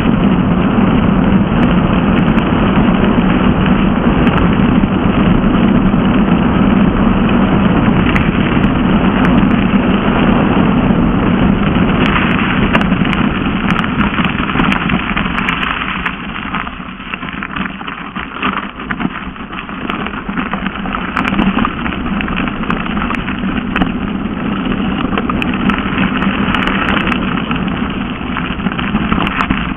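Mountain bike tyres rolling fast over a gravel forest road, with the bike rattling and wind on the microphone from the descent. About halfway through it gets quieter and more uneven, with frequent clicks and rattles as the surface gets rougher.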